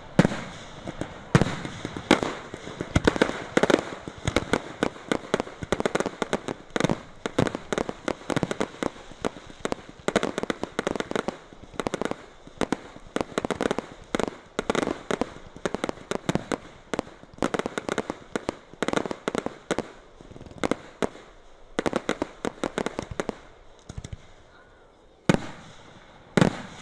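Aerial fireworks display: a dense, fast barrage of shell bursts and crackling reports, thinning after about 24 seconds to two or three single loud bangs near the end.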